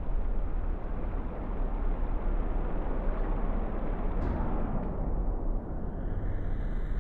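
Underwater pool noise: a steady muffled rumble of moving water.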